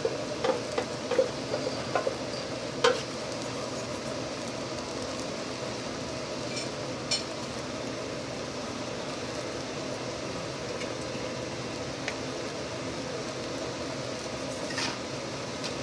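Ground meat and tomato sauce sizzling and bubbling in a pot while a wooden spoon stirs through the thick sauce, with a few sharp wet pops in the first three seconds.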